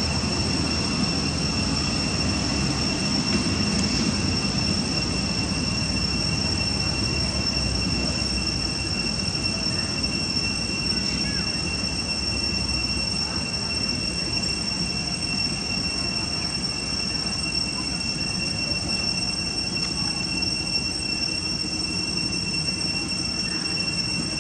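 Steady insect drone in the background, a shrill high-pitched whine holding one unchanging pitch, over a constant low rumble.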